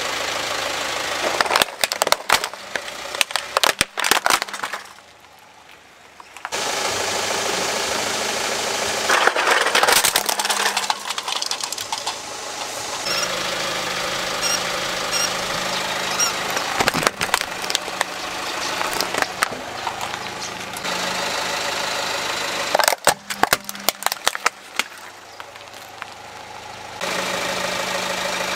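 Car engine running, with clusters of sharp cracks and crunches as a car tyre rolls over plastic toys and crushes them.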